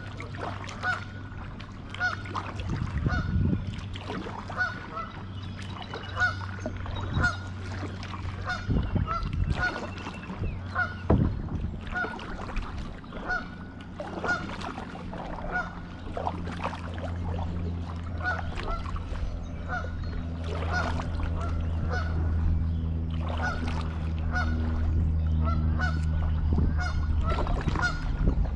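A flock of geese honking, short calls repeating about once or twice a second, over a steady low hum that grows louder in the second half.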